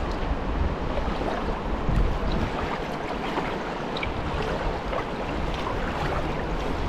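Steady rushing of a large river, with wind buffeting the microphone as a low, wavering rumble. A few faint small clicks come through.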